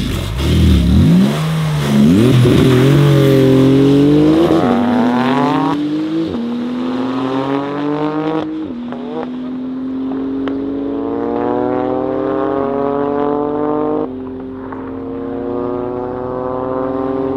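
A turbocharged Toyota GR Yaris, tuned to about 400 hp with a Milltek exhaust, and a Porsche 911 GT2 RS with a twin-turbo flat-six launching hard from a standing start and accelerating away at full throttle. The engine notes climb steadily and drop back at several upshifts, loudest at the launch and then fading as the cars pull away.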